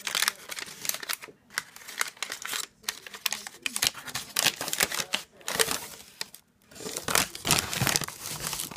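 Packaging wrap crinkling and tearing as it is pulled open by hand, a dense run of irregular crackles with a short lull about two-thirds of the way through.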